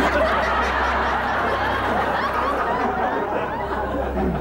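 Audience laughter, many people laughing at once. It starts suddenly and holds steady.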